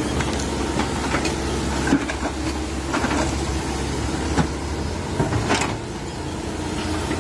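Komatsu PC130 hydraulic excavator's diesel engine running steadily at working speed while it digs, with irregular knocks and scrapes from the bucket working the ground around a tree stump.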